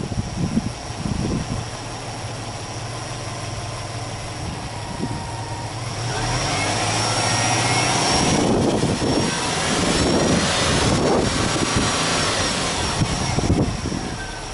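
Subaru Impreza WRX STI's turbocharged flat-four boxer engine idling steadily with the bonnet open, then free-revved in place from about six seconds in, the engine note getting louder and rising and falling before it settles near the end.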